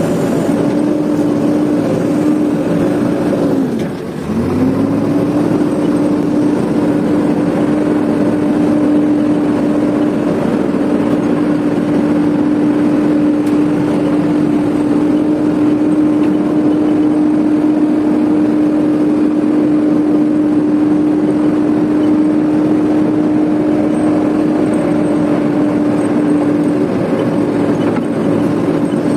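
JCB backhoe loader's diesel engine running steadily at high revs as the machine drives up a dirt track. About four seconds in the revs dip sharply and climb straight back.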